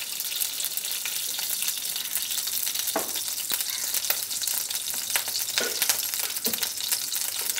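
Ghee sizzling as it melts in a hot kadai: a steady hiss with fine crackling and a few louder pops.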